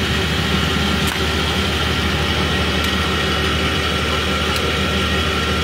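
Steady engine hum, like an engine idling, running without change, with a few faint clicks.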